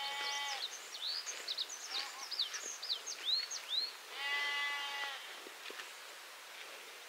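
A young farm animal bleating twice: a steady, high call about a second long at the start and again about four seconds in. Between the calls a bird sings in quick, high chirps.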